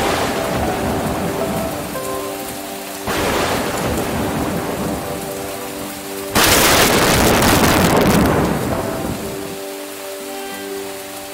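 Steady heavy rain with three claps of thunder: one right at the start, another about three seconds in, and the loudest about six seconds in, which rumbles away over the next few seconds.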